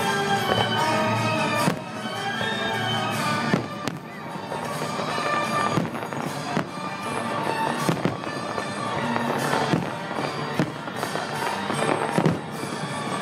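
Aerial fireworks shells bursting, with a sharp bang every second or two, over continuous music.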